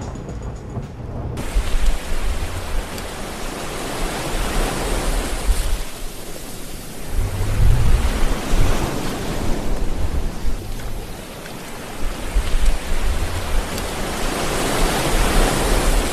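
Storm-at-sea soundscape: a dense rush of waves and rain that surges and eases, with deep rumbling underneath. It is loudest about eight seconds in.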